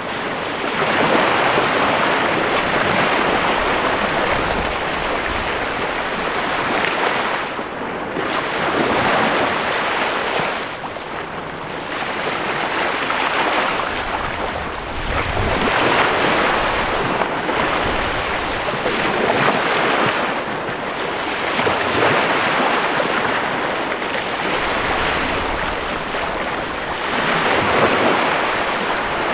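Small bay waves breaking and washing up a sandy beach, the surf swelling and easing every three to four seconds.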